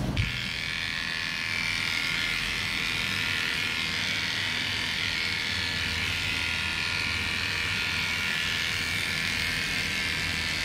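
Cordless electric pet clipper running with a steady buzz as it shaves a dog's coat short.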